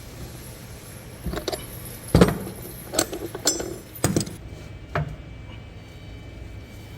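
A run of sharp clinks and knocks, about seven in a few seconds and the loudest about two seconds in, like hard metal parts being handled and set down.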